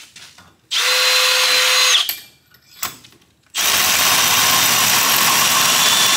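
Cordless drill running in two steady bursts while boring into a part clamped in a bench vise: a short run of about a second, then a longer one starting about three and a half seconds in.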